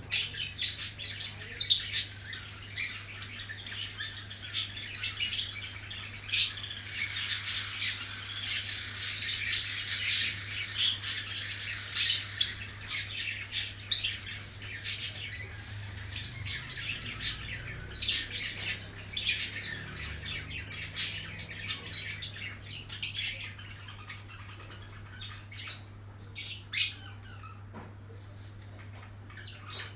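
Birds chirping and squawking in quick, overlapping calls that are busiest in the middle and thin out near the end, over a steady low hum.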